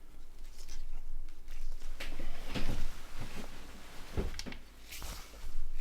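Handling noise from a mobile phone being worked by hand: irregular clicks, taps and rubbing of its plastic body, with the sharpest knock about four seconds in.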